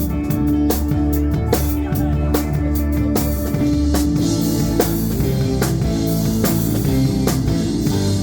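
Rock band playing live: guitar, bass and drum kit at a steady beat, with cymbals ringing out from about three seconds in.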